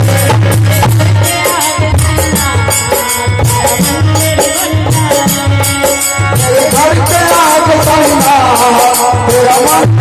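Devotional bhajan music: an instrumental passage with a melody line over steady drum beats and busy hand percussion.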